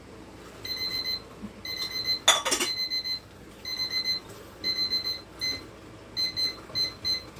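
Digital kitchen timer going off: short high electronic beeps repeating in quick groups, the countdown finished. A brief loud clatter cuts across the beeping a little over two seconds in.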